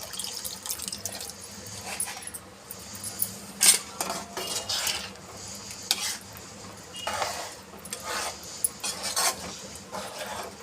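Metal ladle stirring and scraping around a kadai of curry, with irregular clinks against the pan and one sharper knock a little over a third of the way in.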